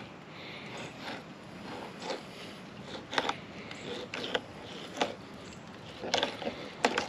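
Knife cutting and scraping through raw remora fillets on a cooler lid: short clicks and scrapes about once a second, over a steady background hiss.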